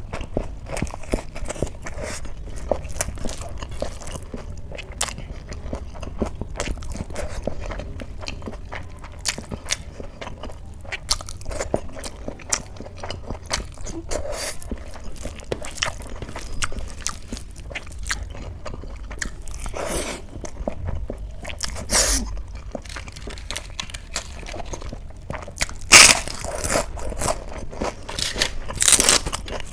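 Close-miked eating: steady chewing and crunching of a rice-and-curry meal, with several louder sharp crunches or clicks in the second half.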